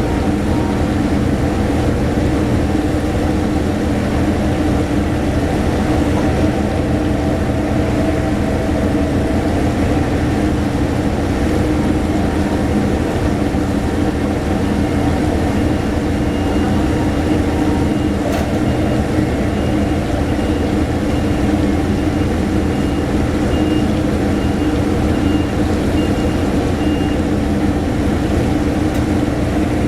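A heavy machine's engine running at a steady drone. A faint repeating beep sounds over it from about halfway through.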